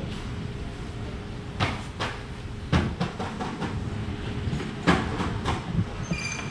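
Irregular sharp knocks and clacks of food-prep work, a knife and utensils striking cutting boards and a steel counter, over a steady background hum. A short high beep comes near the end.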